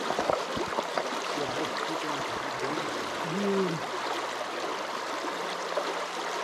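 Creek water running steadily over rocks, a continuous rushing babble, with a short hummed voice sound about three seconds in.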